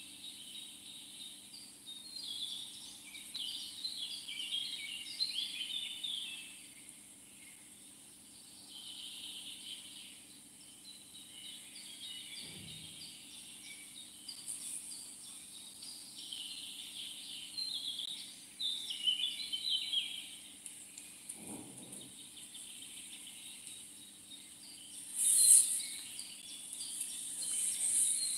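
Birds chirping in bursts that come and go every few seconds, over a steady high-pitched buzz. There are two faint knocks and a brief louder burst of noise near the end.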